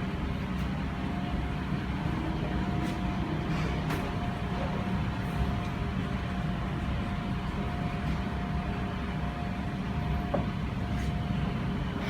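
Steady background hum and hiss with a faint constant whine and a few light ticks.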